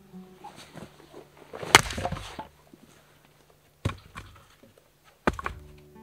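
Three sharp blows of an axe striking wood, about a second and a half apart. The first is the loudest, with a short rustle of wood and debris after it.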